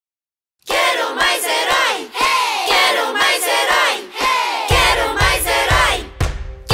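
Cheerful outro jingle: a group of voices singing and calling out together, starting after a short silence, with a drum beat joining in about two-thirds of the way through.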